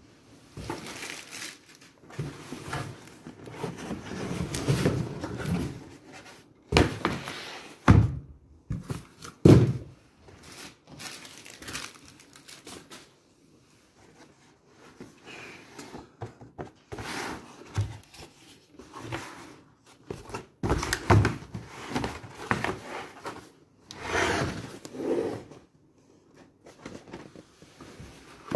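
Cardboard boxes being handled: scraping and rustling as a shoebox is lifted out of a cardboard shipping box, with several sharp knocks as boxes are set down on the floor.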